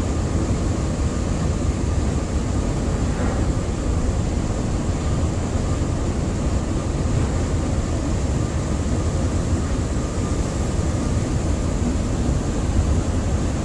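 A tugboat's diesel engines running steadily under load as it pulls on a towline, heard aboard: a constant deep drone with a faint high whine.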